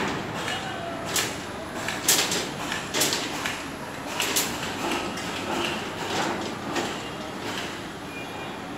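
Steel reinforcing rods clinking and scraping irregularly, about eight sharp clicks spread unevenly, as a ram moves and tugs about on top of the pile.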